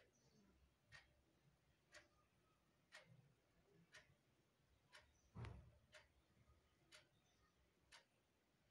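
Faint clock ticking, one tick each second, with a single duller bump about five and a half seconds in.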